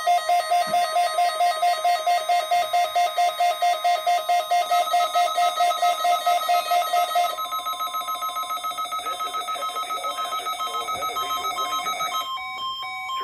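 Weather alert radio receivers sounding their alarm: rapid pulsed electronic beeping, about five beeps a second, set off by a required weekly test from the National Weather Service. The beeping drops in level and changes pattern about seven seconds in, and a different tone takes over near the end.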